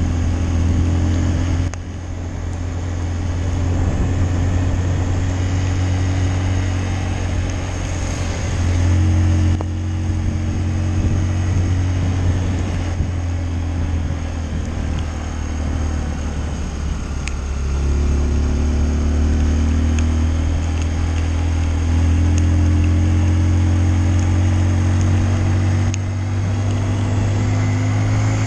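Honda CRF150L's single-cylinder four-stroke engine running as the motorcycle is ridden, its note stepping up and down several times, over steady wind and road noise.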